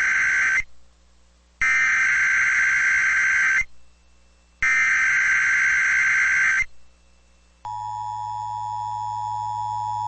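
NOAA Weather Radio Emergency Alert System SAME header: harsh warbling digital data bursts carrying the coded Tornado Watch alert. The tail of one burst is followed by two full bursts about a second apart. Then, near the end, the steady two-tone EAS attention signal begins and holds.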